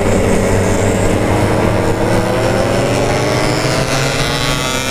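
Yamaha RX-King 135 cc single-cylinder two-stroke motorcycle engine running under way, its pitch rising slowly and steadily as it accelerates.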